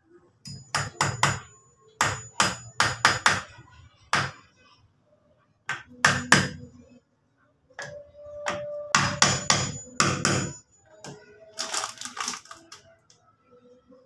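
Hammer driving nails into lumber: quick runs of several sharp blows with a metallic ring, separated by short pauses.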